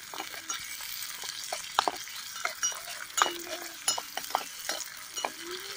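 Small steel spoon stirring onions frying in oil in a miniature steel pot, with irregular clinks and scrapes of spoon on metal over a faint sizzle.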